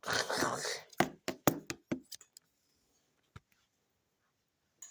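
A headset box being handled while someone tries to open it: a short scraping rustle, then a quick run of knocks and taps against the packaging, and one more tap about three seconds in.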